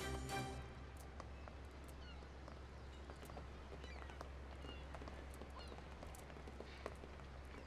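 Faint outdoor ambience: small birds chirping here and there over a low steady hum, with a few light clicks. A musical chord dies away in the first half-second.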